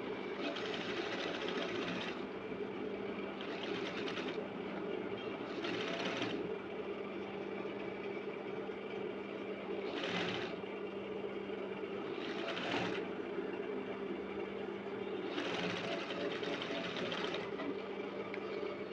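Sewing machine running in about six short stitching runs, half a second to two seconds long, as bias binding is sewn onto a neckline, over a steady low hum.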